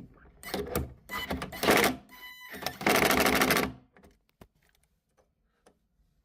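Rockville RBG18FA subwoofer cabinet rattling and buzzing as it plays at low volume: loose screws in the cabinet. The rattle is loudest for a moment about three seconds in, then stops about four seconds in.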